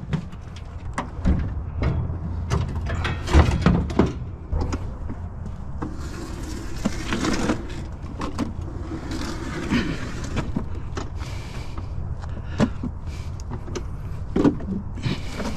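Clunks, knocks and scraping of a heavy scooter being wrestled into a vehicle. A run of knocks comes first, then two longer stretches of scraping and sliding with a few more knocks, over a steady low hum.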